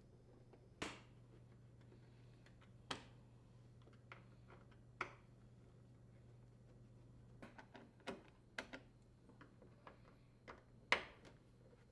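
Light clicks and taps of a screwdriver and small screws being handled while the Torx screws holding a dishwasher's inner and outer door panels are unthreaded. The clicks are scattered a second or two apart, with the sharpest one near the end.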